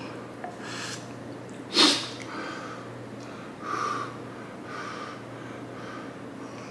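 A person breathing hard through the mouth and blowing on a spoonful of boiling-hot soup to cool it. There is one loud, sharp intake of breath about two seconds in, a stronger puff of blowing about four seconds in, and several short, soft puffs after it.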